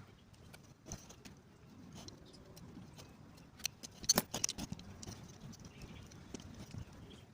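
Light clicks, taps and rustling of hand work on a dismantled alternator's parts, with a quick cluster of sharp clicks about four seconds in.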